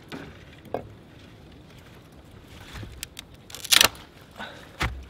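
A green sapling, scored around with a knife, cracking as it is bent and snapped off by hand: a few small cracks, then a loud sharp snap about four seconds in and a smaller crack just before the end.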